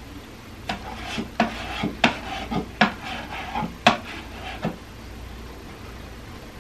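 About ten sharp clicks and scrapes of a painting tool against a plate used as a paint palette while paint is mixed and picked up, spread between about one and five seconds in.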